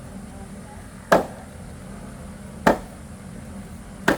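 Three sharp chopping blows of a hand tool striking a hard material, evenly spaced about one and a half seconds apart.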